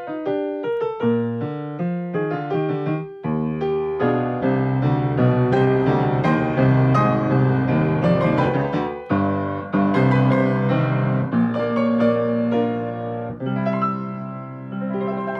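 Background music led by piano, with a run of quick notes over a steady lower accompaniment.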